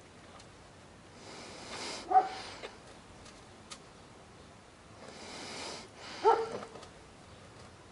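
A dog barking twice, about four seconds apart; each short bark comes after a swell of hissing noise.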